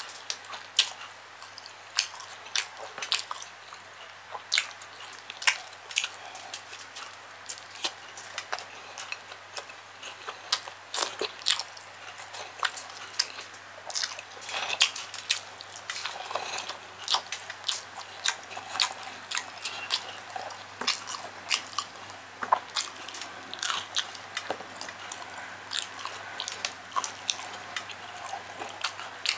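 Close-miked chewing and mouth sounds of a person eating chicken liver and gizzard adobo by hand: irregular wet clicks and smacks, several a second, over a faint steady low hum.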